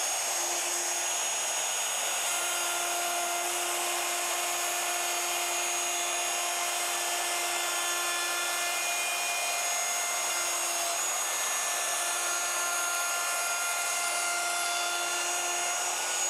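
DeWalt handheld router with a bearing-guided rabbeting bit running at a steady high pitch as it cuts a rabbet along the inside edge of a wooden frame.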